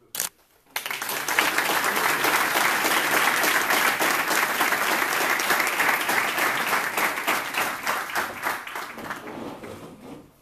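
A small group of people applauding, starting about a second in and dying away near the end, after a short sharp click at the very start.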